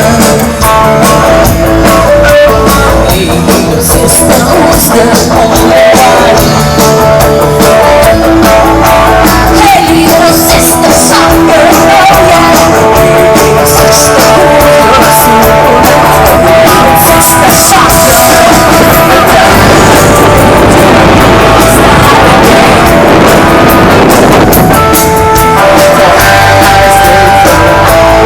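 Loud live rock music with electric guitar and drums from a festival stage. About twenty seconds in, a noisy swell builds and then drops back into the band.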